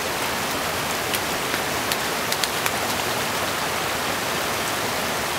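Steady rushing of a small mountain stream, with a handful of short sharp ticks between about one and three seconds in.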